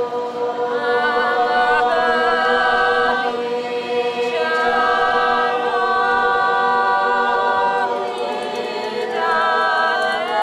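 Unaccompanied group of voices singing a traditional Georgian polyphonic song. The upper voices hold and shift long notes above a steady held low drone.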